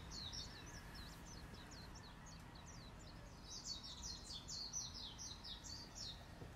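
Faint bird chirping: a steady run of short, high chirps, several a second, busiest around the middle.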